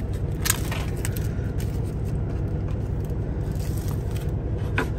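Plastic film being peeled and crinkled off a tray of raw chicken breasts, with a couple of sharp crackles, one about half a second in and one near the end. Under it runs the steady low hum of the semi truck idling.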